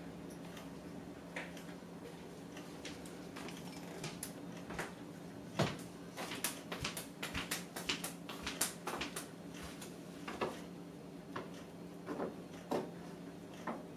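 Lime peel strips being handled and dropped into a stainless steel bowl on a kitchen scale: soft rustles and a run of light clicks and taps, with one firmer knock about five and a half seconds in, over a low steady hum.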